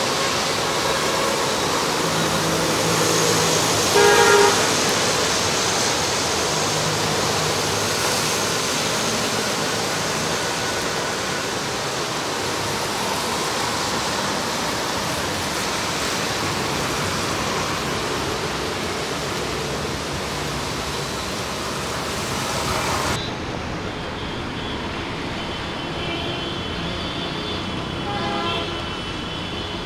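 Heavy rain falling on a flooded road, a steady hiss, with passing traffic and a short car horn toot about four seconds in. About two-thirds of the way through, the rain hiss cuts off suddenly to quieter wet-street traffic, with another brief horn near the end.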